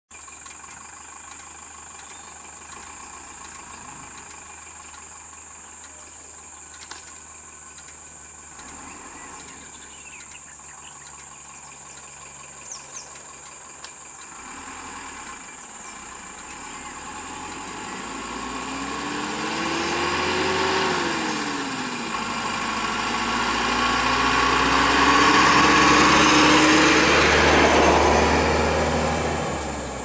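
Bus diesel engine idling, then revving as it pulls away: the pitch climbs, drops once about 21 seconds in as it shifts gear, and climbs again, loudest a few seconds before the end before fading. A steady high-pitched whine runs underneath.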